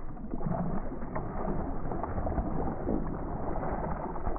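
Muffled, steady wash of wind and water noise around a small fishing boat, with a few faint knocks.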